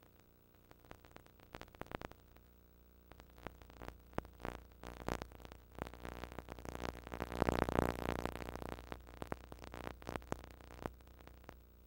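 Irregular crackling and popping noise on a videotape's audio track, with no programme sound. The crackle grows denser and louder in a swell about two-thirds of the way through, over a faint low hum.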